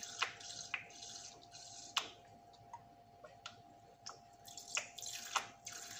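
Lime juice squirted from a plastic lime-shaped squeeze bottle dripping and spattering into a plastic measuring spoon, with a few scattered small clicks, the loudest about two seconds in. A faint steady hum runs underneath.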